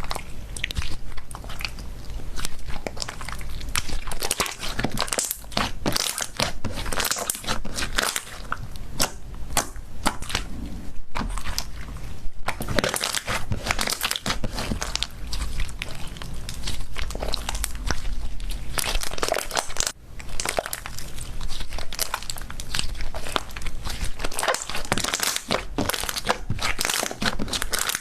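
Slime being squeezed, pressed and stretched by hand, making dense crackling and crinkling pops, with brief breaks about twelve and twenty seconds in.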